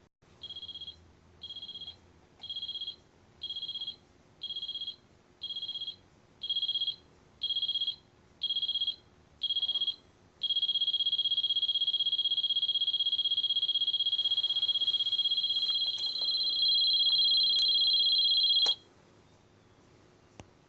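Electronic alarm of a Casio AC-200 robot alarm clock: ten short high beeps about one a second, growing louder, then a continuous high beep for about eight seconds that cuts off suddenly, as the alarm is switched off.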